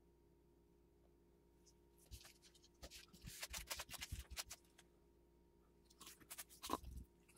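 Gloved hands smoothing a sheet of carbon fiber cloth flat on a plate: soft rustling and scraping for about two seconds in the middle, then a few more handling sounds with a light knock near the end.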